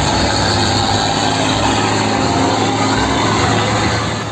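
A heavy tanker truck's engine running as the truck drives past on a road, a steady rumble with road and traffic noise. It eases off slightly near the end.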